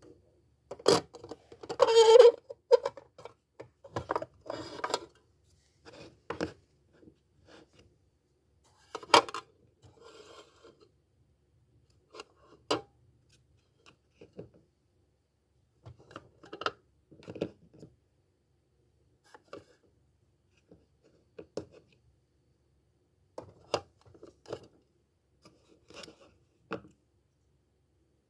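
Small hard objects being handled: scattered clicks, taps and brief rubbing sounds, thickest and loudest in the first few seconds, then sparser with quiet gaps between.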